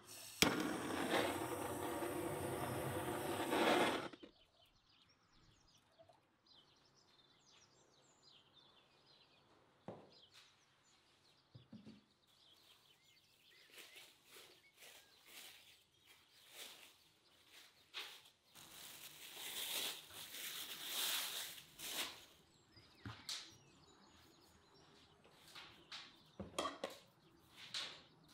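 A gas blowtorch roars steadily into a wood stove's firebox to light the stacked kindling, then cuts off sharply after about four seconds. After it come quiet handling sounds of dough work: scattered taps and rustles, with a louder hissy stretch midway.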